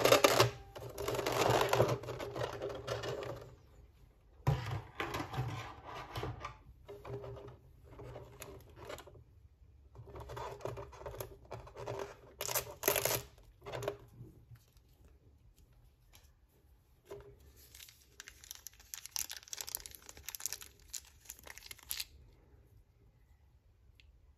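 Clear plastic blister tray and plastic parts bags crinkling and crackling as they are handled, in irregular spells with short pauses.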